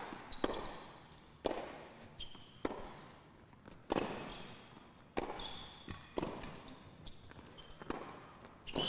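Tennis rally on a hard court: racket strikes and ball bounces, one about every second, each echoing briefly in the hall, with shoe squeaks on the court in between.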